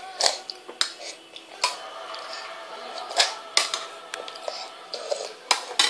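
Metal spoons clinking and scraping against stainless-steel bowls of soup: a string of sharp, irregular clicks, about seven in a few seconds.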